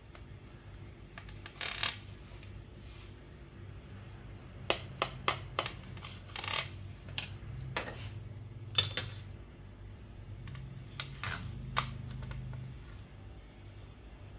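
A knife cutting through a cake topped with flaked almonds on a ceramic plate. It makes scattered sharp clicks, scrapes and crunches as the blade breaks the almond flakes and knocks against the plate, with a quick run of clicks about five seconds in.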